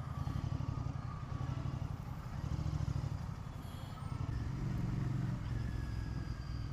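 Motorcycle engine running steadily while riding, its low pulsing a little louder from about four seconds in.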